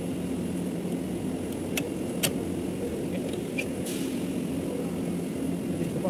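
Running air-conditioning unit giving a steady mechanical hum, with two sharp clicks about two seconds in and a brief hiss near four seconds.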